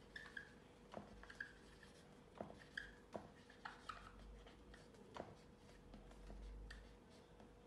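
Marker pen writing on a whiteboard: faint short squeaks and taps of the tip on the board as each stroke is made.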